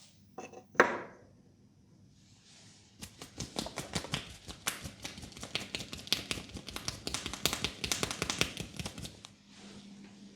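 Hands massaging a person's head close to the microphone: one sharp snap about a second in, then a quick, irregular run of taps, slaps and rubbing on the scalp and hair for about six seconds.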